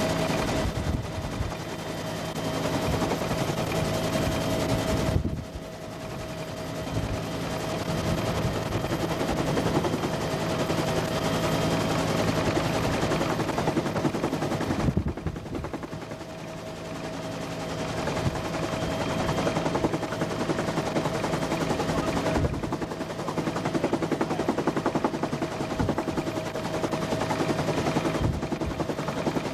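Cabin noise of a military helicopter in flight: a steady engine and transmission whine over the rapid chop of the rotor. The level drops briefly twice and builds back up.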